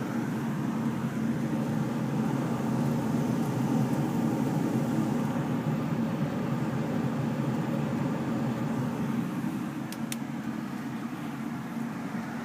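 Consolidated Industries gas furnace running, a steady low rushing noise from its burners and blower, with two faint clicks about ten seconds in.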